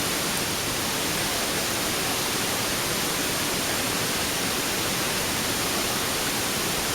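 Steady rush of a waterfall pouring into a pool, an even hiss with no breaks.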